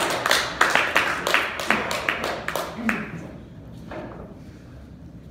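Small audience clapping, thinning out and dying away about three seconds in.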